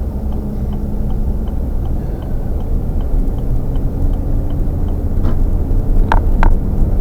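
Car engine and road rumble heard from inside the cabin, with a faint ticking about twice a second, like a turn indicator, that stops about five seconds in. Two short high chirps come near the end.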